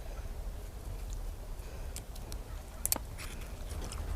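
Mouth sounds of a man eating spicy Korean food: chewing with a few short wet clicks and lip smacks, two to three seconds in, over a low steady hum.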